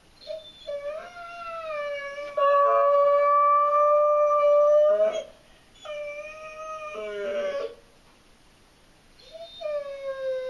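German Shorthaired Pointer howling, three long drawn-out howls: the first lasts about five seconds and gets louder partway through, a shorter one follows, and a third starts near the end, sliding slightly down in pitch. The howling comes from separation anxiety.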